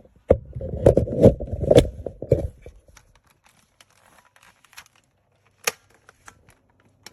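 Handling noise: rustling and scraping with clatter for about two and a half seconds, then scattered small clicks and one sharper click past the middle. No motor runs.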